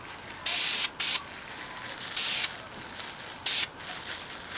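Dupli-Color primer sealer aerosol can hissing in four short spray bursts, the longest about half a second in. The short passes lay down a light dusting coat of primer.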